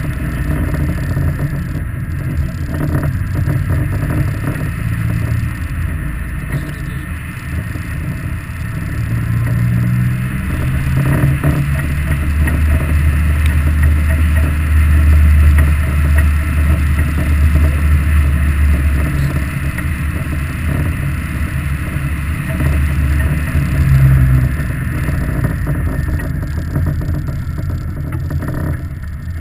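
Ariel Atom engine heard from the open cockpit while driving, its note shifting up and down with throttle and gear changes. It is loudest through the middle and eases off near the end as the car slows.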